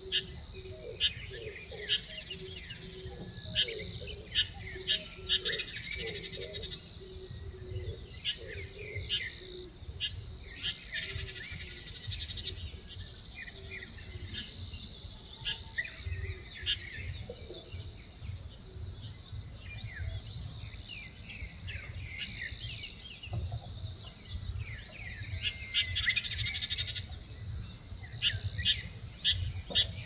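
Woodland birds chirping: many short, sharp calls, busiest in the first few seconds and again near the end, over a steady high-pitched background. A lower, repeated call comes in the first dozen seconds, and a low rumble runs underneath.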